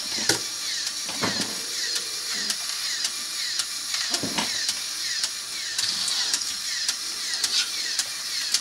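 Lego Technic 42008 Service Truck's Power Functions electric motor whirring steadily as it drives the model's plastic gears to lower the boom. Short plastic clicks come through the gearing.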